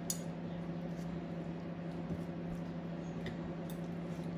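Metal spoon and fork scooping soft roasted aubergine flesh out of its skin. A sharp click of cutlery comes just after the start and a few fainter clicks a little past three seconds in, over a steady low hum.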